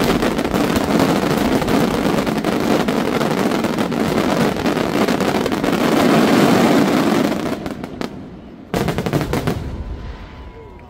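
Aerial fireworks barrage: many shells bursting together in a dense, continuous run of rapid bangs and crackle, easing off after about seven and a half seconds, with one more sharp bang near the end as it dies away.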